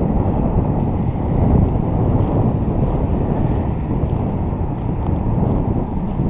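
Wind buffeting the microphone: a steady low rumble with no engine tone in it.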